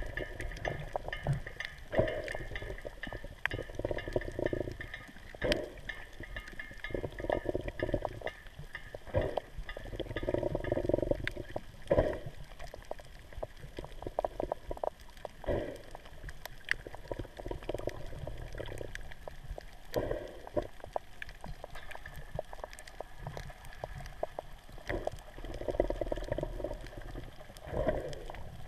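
Muffled underwater water noise picked up through a camera housing: gurgling swells that come and go every couple of seconds, with scattered sharp clicks throughout.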